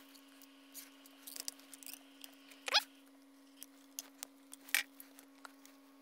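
Plastic zip ties being fastened by hand: scattered light clicks and rattles, with one quick rising zip about halfway through as a tie is pulled tight. A faint steady hum runs underneath.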